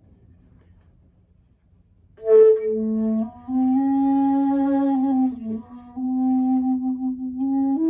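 Geoffrey Ellis Basketmaker Anasazi rim-blown flute in the key of A, made of tiger maple, being played. After about two seconds of quiet it sounds a short higher note, then a few long, low held notes with small slides between them.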